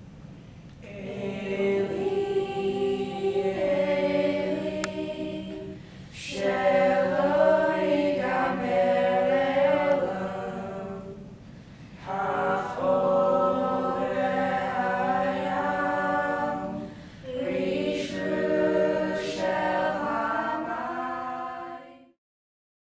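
A group of teenage students singing a slow song together unaccompanied, in four long phrases with short breaks between them; the singing cuts off abruptly near the end.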